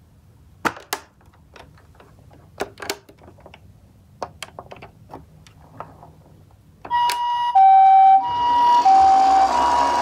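Toy ambulance handled, with a few light clicks and taps as its roof buttons are pressed; about seven seconds in its electronic siren starts, a Japanese-style two-tone "pee-po" alternating between a higher and a lower note about every half second. A rushing hiss rises under the siren about a second after it starts.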